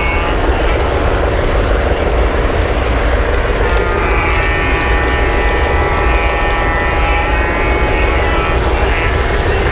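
O scale model train running on three-rail track, heard from a camera riding on the train: a steady rumble of wheels and motor with a wavering whine over it.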